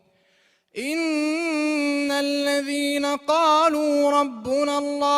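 A male reciter chanting the Quran unaccompanied in melodic tajweed style, holding long drawn-out notes with wavering ornaments. The voice comes in after about a second of near silence and breaks briefly twice.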